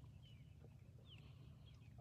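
Near silence with a few faint, short bird chirps, each a quick falling note, over a steady low hum.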